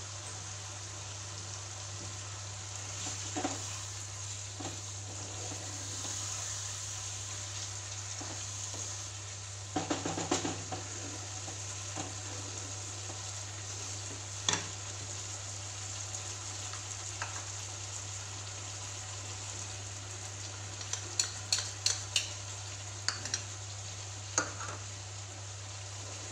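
Chicken pieces in a spiced gravy sizzling steadily in a nonstick pot, with a wooden spatula stirring and knocking against the pan: a few knocks about ten seconds in, one more a little later, and a quick cluster near the end. A steady low hum runs underneath.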